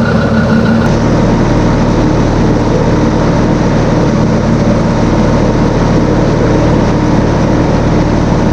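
Tractor engine running steadily under load, driving the blower that fills the hay silo, with a dense hiss over the engine hum. About a second in, a high steady tone drops out.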